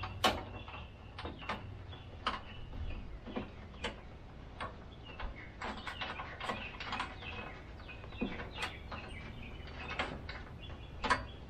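Irregular metallic clicks and light knocks of tools and bolts as the recoil starter housing is bolted back onto a Honda GX390 engine.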